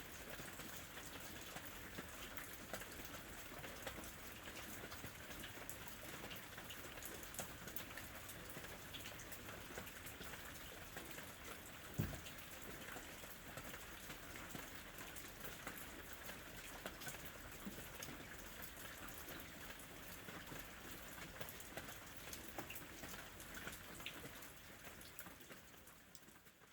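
Steady rain with many individual drops ticking on a surface. About halfway there is a single loud thump. The rain fades out near the end.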